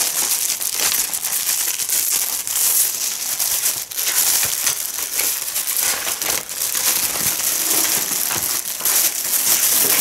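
Plastic packaging crinkling and crackling continuously as it is handled.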